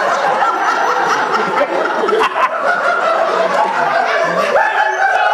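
Live audience laughing loudly and without a break, many voices overlapping.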